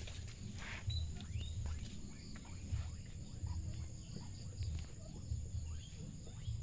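Outdoor background of many short animal chirps, each sliding down in pitch, several a second, over an uneven low rumbling on the microphone.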